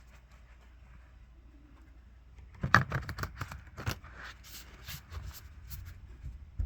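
Tarot cards being handled and shuffled: a run of sharp, irregular clicks and slaps starting about two and a half seconds in, trailing off into lighter taps.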